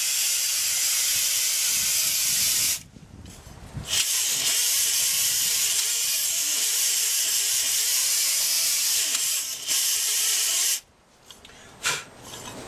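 Small pneumatic grinder with a spinning cleaning wheel running at full speed against the rusty S-cam of a heavy truck's air drum brake, cleaning it up: a steady high hiss and whir. It stops about three seconds in, starts again a second later and runs until near the end, with one short burst after.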